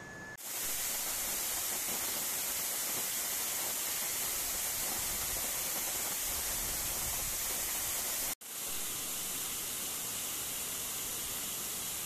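Waterfall close up: a steady, dense hiss of falling water and spray. It starts abruptly and breaks off for an instant about eight seconds in before carrying on.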